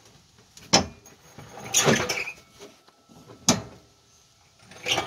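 Two sharp knocks a little under three seconds apart, with scraping and rubbing between them and again near the end. The sound comes as a Cadillac Fleetwood's fuel tank is shoved and worked up into place under the car's body, resting on a floor jack.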